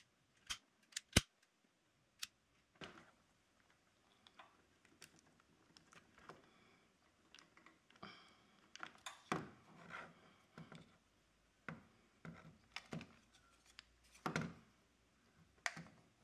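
Sharp clicks and snips of a hand tool working a wire, four in the first two seconds or so, then irregular rustling and small clicks of wires and spade connectors being handled and pushed onto a table saw's switch terminals.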